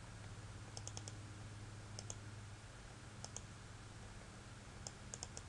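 Computer mouse button clicking in quick pairs and small clusters, double-clicks, a few times over a faint low steady hum.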